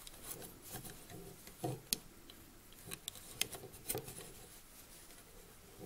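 Faint, scattered clicks and soft rubbing of yarn and fingers working loops over the pegs of a plastic round knitting loom.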